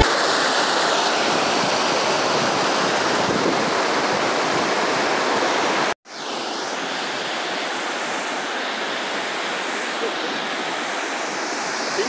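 Steady rushing of a waterfall and river water, with a brief dropout about halfway through, slightly quieter afterwards.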